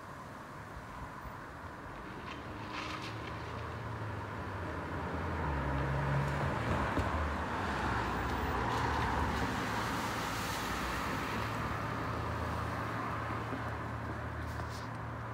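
A road vehicle passing by: a low engine hum and road noise swell over several seconds, are loudest around the middle, then fade away.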